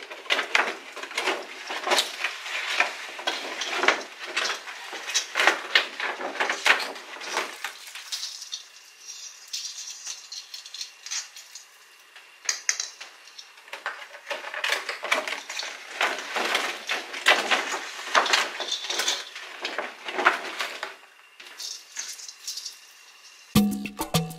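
Christmas ball ornaments and a plastic storage box clinking and rattling as ornaments are handled and packed into the box. It comes in two spells of quick clattering with a quieter pause between, and upbeat music starts near the end.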